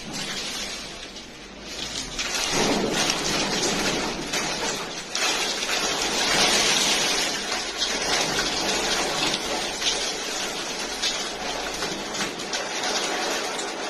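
Rain pouring down as a dense, steady hiss that swells louder about two and a half seconds in.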